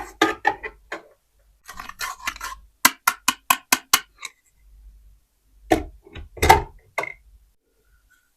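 Small plastic toy dishes and utensils being handled, knocking and clinking together in irregular clusters. There is a quick run of about six taps a few seconds in and a louder clatter near the end.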